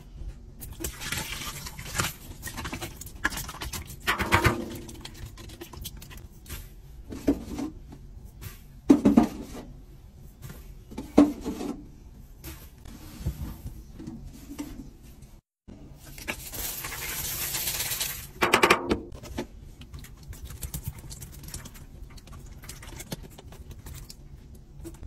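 Laundry detergent and powders being poured into a top-loading washer's stainless steel drum, with irregular knocks and clinks of the bottles and containers. A longer hissing pour comes about two-thirds of the way in.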